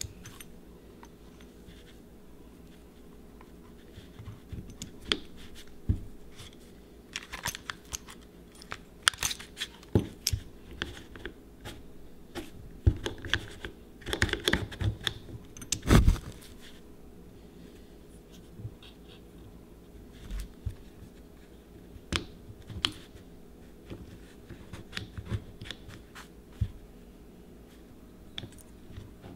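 Scattered clicks, taps and knocks of a one-handed bar clamp being fitted and squeezed down on a motorcycle brake master cylinder, compressing the plunger spring. The clicks come in clusters, with one louder knock about halfway through.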